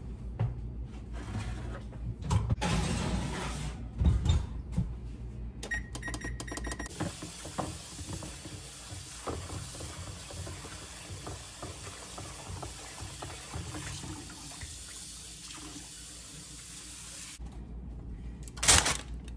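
Kitchen tap running into the sink for about ten seconds, an even hiss that starts about seven seconds in and shuts off abruptly near the end. Before it come handling clatters and a brief run of electronic beeps, and a short loud knock follows near the end.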